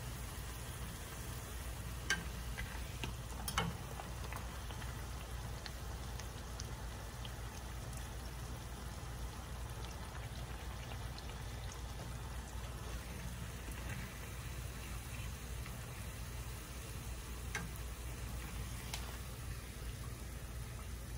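Corn tortilla frying in shallow oil in a skillet: a steady sizzle with scattered small pops. A couple of sharper clicks stand out about two and three and a half seconds in.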